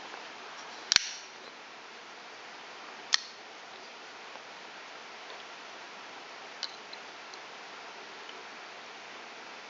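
Sharp clicks and taps of folding knives being handled: the loudest about a second in, a second one about three seconds in, and a lighter one near seven seconds, with a few faint ticks over a steady hiss.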